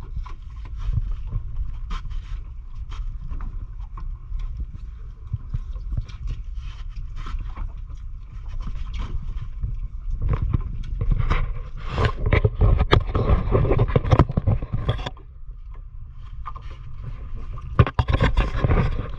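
Small fishing boat at sea: a steady low rumble with short knocks and scrapes of gear against the hull. The scraping and splashing noise grows louder from about ten to fifteen seconds in, and again near the end.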